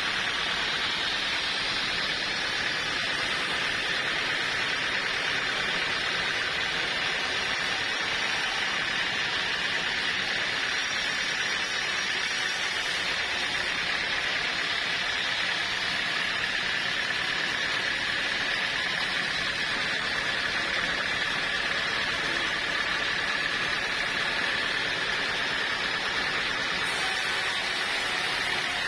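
Sawmill saw running steadily, a constant high whine over a dense noisy hiss that holds even throughout.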